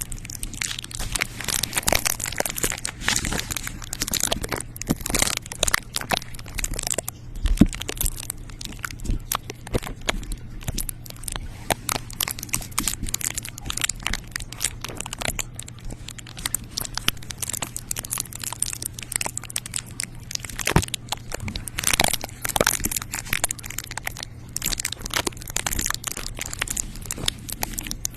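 Close-miked ASMR trigger sounds: a dense, continuous run of crisp crunching and crackling, like something being crushed or crumpled, over a faint steady low hum.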